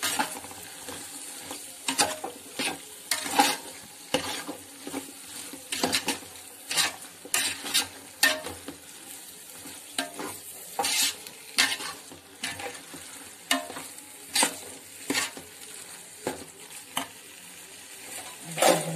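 A spoon scraping and stirring through onion-tomato masala frying in a pot, in irregular strokes over a steady sizzle of hot oil.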